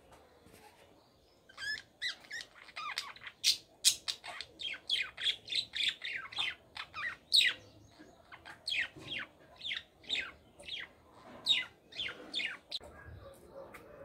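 Pet budgerigars and cockatiels calling: a fast run of sharp, downward-sweeping chirps, two or three a second, starting about a second and a half in and stopping shortly before the end.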